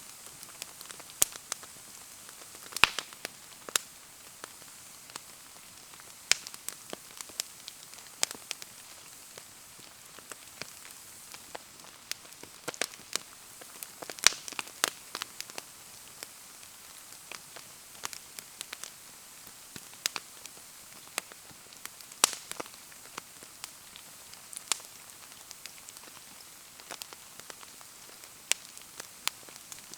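Wood campfire crackling and popping in the rain, with irregular sharp snaps over a steady hiss of rain falling.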